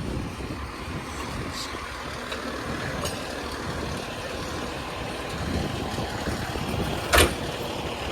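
Steady rumble of vehicle engines mixed with wind noise on the microphone. About seven seconds in comes one short, sharp bang, the loudest sound.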